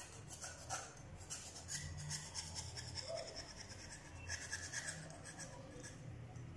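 Knife blade scraping a small carbon motor brush down to size, in a series of short, irregular strokes. The new brush is slightly too big for its holder in the centrifuge motor, so it is being shaved to fit.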